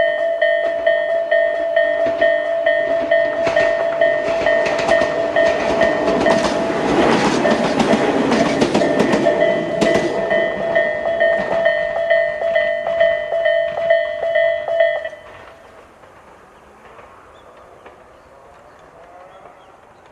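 Railway level-crossing warning bell in Tobu's 'sound A' pattern, ringing one pulsing electronic tone at about two strokes a second. A Tobu 10030-series electric train passes over the crossing from about a fifth of the way in to just past the middle, its wheels clacking over the rail joints. The bell cuts off about three quarters of the way through, leaving only faint background.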